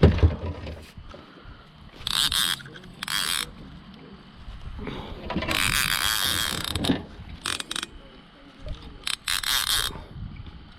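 Fishing reel clicking rapidly in about five short bursts, as line is worked in or pulled off the reel.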